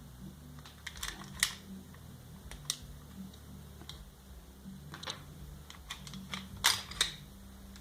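Metal parts of an airsoft 1911 pistol clicking and clacking as it is taken apart by hand: a handful of sharp clicks, loudest about a second and a half in and again near the end.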